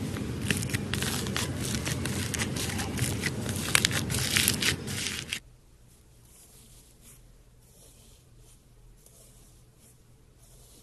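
Slime being squeezed and pulled apart, with a dense crackling and popping. The crackling cuts off abruptly about five seconds in, leaving only faint scattered clicks.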